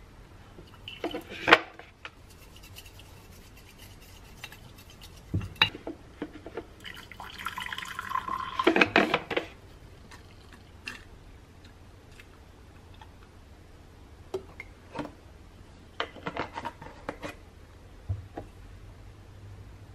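Drink being made by hand: scattered taps and clinks of a bamboo scoop and utensils on glass and a metal tea tin, with a louder stretch of liquid sound about seven to nine seconds in.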